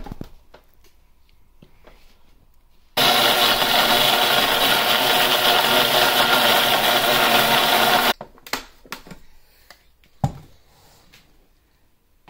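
Preethi Blue Leaf Platinum mixer grinder running for about five seconds, blending a thick mix of oats, fruit, nuts and milk in its steel jar; it starts abruptly about three seconds in and cuts off suddenly. A few clicks and knocks of the lid and jar come before and after it.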